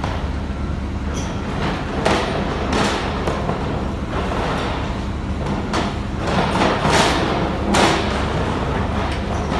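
Earth drill rig's diesel engine running steadily, with a series of metallic clanks and thuds from the working rig, bunched about two to three seconds in and again six to eight seconds in.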